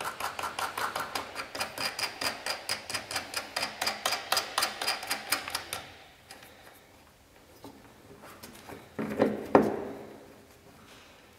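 Fast run of sharp metallic clicks, about six a second for some six seconds, as a stainless screw and T-nut fastener is worked on the trailer's wear band. Then one louder metal knock and scrape a little after nine seconds.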